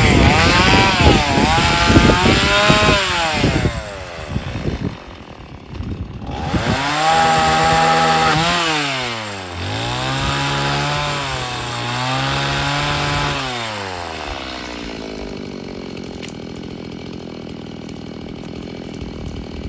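Gas-powered chainsaw revving up and down over and over as it cuts into a large downed tree, its pitch rising and falling with the throttle and the load. For the last several seconds it settles to a lower, steady running.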